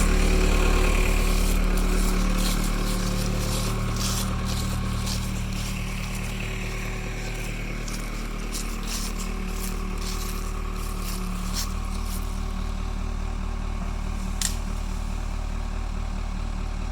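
Case 580E backhoe's diesel engine running steadily, its sound easing off over the first few seconds, with scattered sharp clicks and cracks over it and one distinct click near the end.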